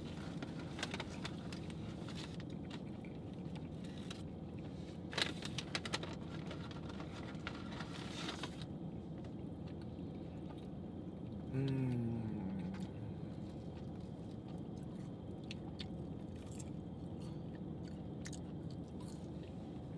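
People chewing and crunching fast-food fries and a cheeseburger, with crinkling of a paper bag and wrapper a few seconds in, over a steady low hum. About halfway through, one of them gives a short falling "mm".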